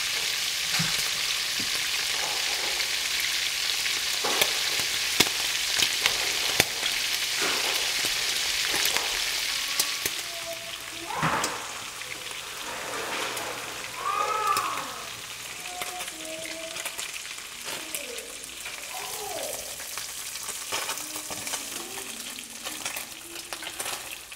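Shrimp and chunks of fish sizzling in hot oil in a frying pan on high heat, with a steady crackling hiss and scattered clicks of the wooden spatula. The sizzle is loudest through the first ten seconds, then turns quieter, with a knock about eleven seconds in.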